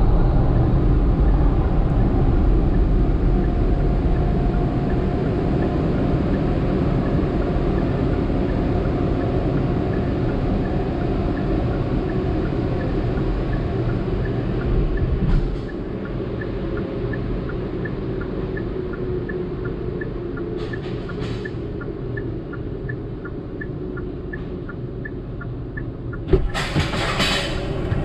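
Automatic car wash tunnel equipment running steadily, heard from inside the car. The rumble drops in level about halfway through, faint regular ticks follow, and a loud burst of noise comes near the end.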